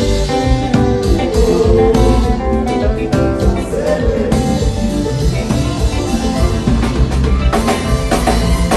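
Kompa band playing at a sound check, with guitar, drum kit and heavy bass.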